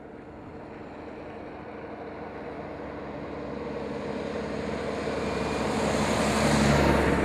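A Volvo truck approaching along the road and passing close by, its engine and tyre noise growing steadily louder to a peak near the end.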